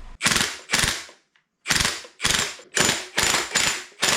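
Hand ratchet wrench cranked in quick back-and-forth strokes, each a short clatter of pawl clicks, about two a second, with one brief pause about a second in.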